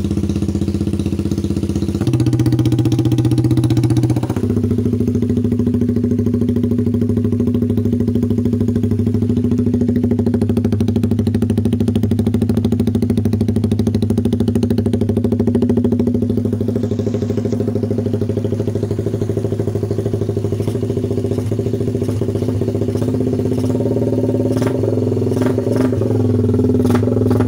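Motorcycle engine running through an open, unbaffled aftermarket exhaust pipe, mostly at a steady idle. Its note changes and gets slightly louder for a couple of seconds about two seconds in, and rises a little again near the end.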